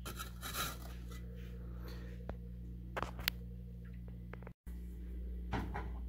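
A few light clicks and taps as the small ceramic microwave kiln is handled, over a steady low electrical hum.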